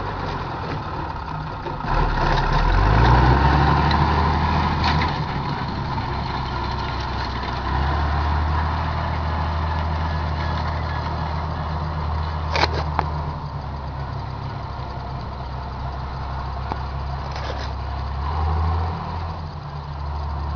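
Fiat 115-90 tractor's six-cylinder diesel engine running steadily under load while pulling a rotary hay rake. It grows louder about two seconds in and swells briefly again near the end, with a single sharp click a little past the middle.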